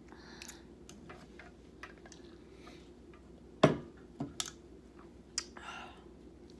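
Eating sounds: a handful of sharp clicks and taps, typical of cutlery against a plate and mouth noises while chewing, the loudest about three and a half seconds in with a few more just after.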